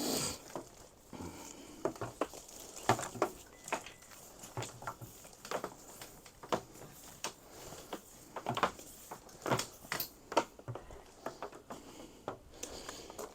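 Irregular light knocks and clicks, a couple a second and uneven in strength: handling noise from an extension cord being worked along the carport's metal frame.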